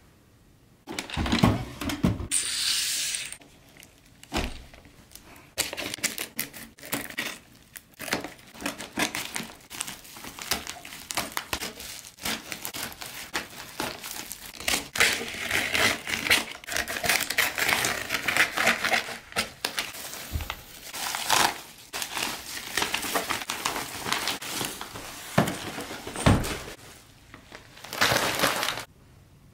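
Brown paper parcel wrapping being crinkled, rustled and torn open by hand, in repeated bursts with crisp crackles, and a few dull knocks of the package against the table.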